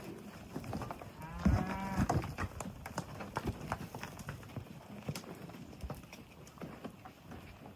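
A cow mooing once, a call of under a second about a second and a half in, over scattered clopping of hooves on the ground.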